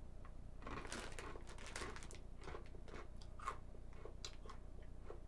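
Someone chewing crunchy cheese-dusted pretzels with the mouth close to the microphone, a string of faint, irregular crunches.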